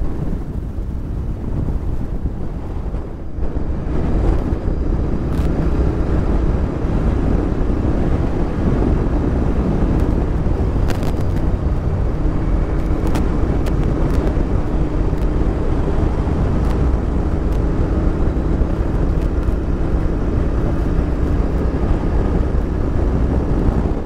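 Royal Enfield Interceptor 650's parallel-twin engine running at road speed under the rider, mixed with heavy wind rush on a helmet-mounted camera. It grows louder about four seconds in.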